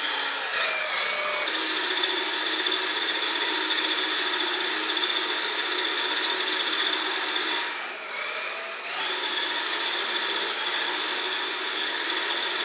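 Electric 1/10-scale RC4WD Desert Runner truck driving, its motor and planetary reduction gearbox giving a steady high whine over gear and tyre noise. It eases off briefly about eight seconds in, then picks up again.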